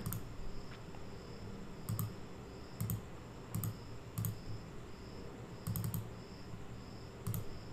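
A few soft computer mouse clicks, spaced a second or so apart, several of them quick double-clicks.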